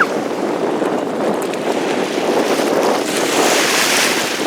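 Sea waves washing on the shore, with wind buffeting the microphone; a wave swells louder about three seconds in.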